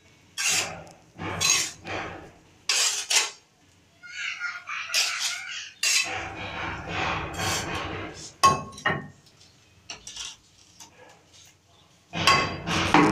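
Steel trowel scraping and spreading wet cement mortar across the back of a ceramic wall tile in a series of short strokes, with two sharp clicks of metal on tile past the middle. Louder tapping begins just before the end.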